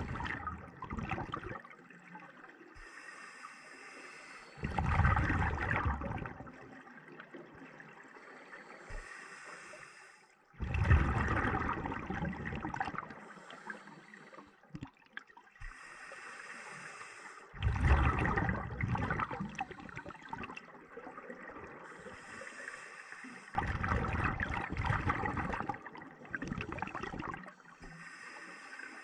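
Scuba diver breathing through a regulator underwater: each breath in is a short high hiss, and each breath out is a burst of rumbling, gurgling exhaust bubbles lasting two to three seconds. The cycle repeats about every six seconds, five breaths in all.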